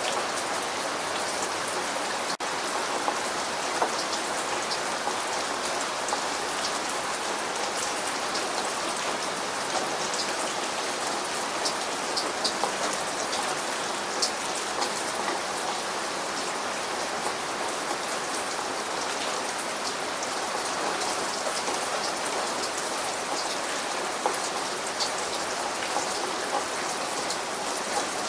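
Steady rain falling: an even hiss dotted with sharper ticks of individual drops, with a momentary dip in level about two seconds in.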